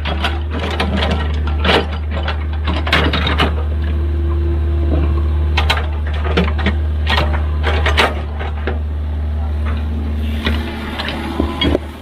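Excavator working: its diesel engine runs with a steady low hum, and sharp knocks and clanks from the digging come at irregular intervals.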